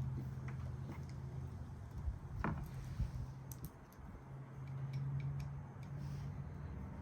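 Scattered light clicks and taps of tools and small parts being handled, with one sharper tap about two and a half seconds in, over a low hum that fades out and back.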